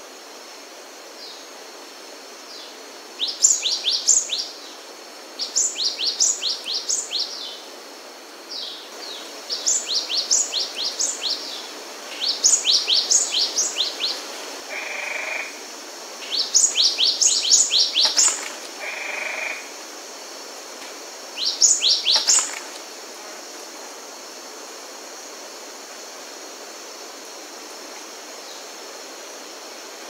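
Cinereous tit (Parus cinereus) singing: repeated bouts of quick, high, downward-sweeping notes, six phrases over about twenty seconds, over a steady background hiss.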